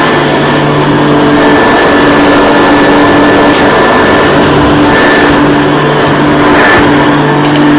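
Hoover U4008 upright vacuum cleaner running steadily while vacuuming a plush rug. Its motor hum wavers slightly as it is pushed back and forth.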